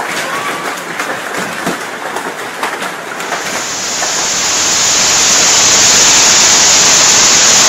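Hail falling, with separate hailstone hits standing out from a steady patter. About three seconds in, it gives way to a much louder, dense, steady hiss of heavy hail that builds for a second or two and then holds.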